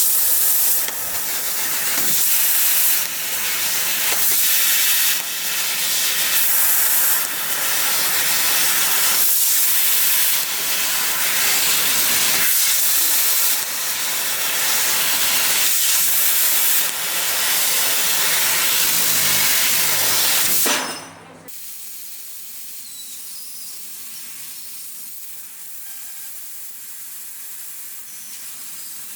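6 kW fiber laser cutting machine cutting 3 mm aluminium sheet: a loud hiss of assist gas blasting through the cutting nozzle, stepping louder and softer every second or two. The hiss cuts off about 21 seconds in, leaving a faint steady background noise of the machine.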